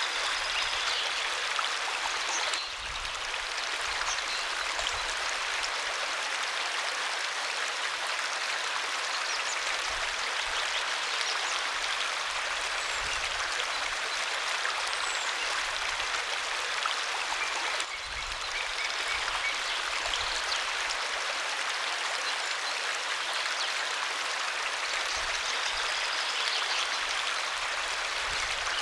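Waterfall rushing in a steady, dense hiss of falling water, dipping briefly twice, about two and a half seconds in and about eighteen seconds in.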